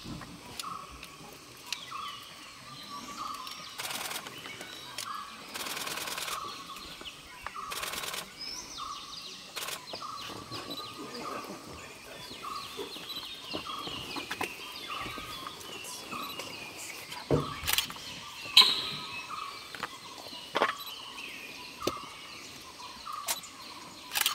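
Forest birds calling, one repeating a short note about once a second among scattered higher chirps. Several bursts of rapid camera shutter clicks come over it.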